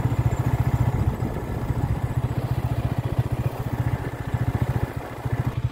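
Small motorcycle engine running under way at a steady speed, its exhaust pulses coming fast and even.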